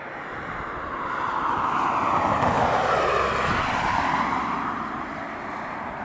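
A De Havilland Canada Dash 8 twin turboprop airliner on final approach flies past. The engine and propeller noise swells to a peak around the middle and then fades. As it goes over, a whooshing tone sweeps down and back up.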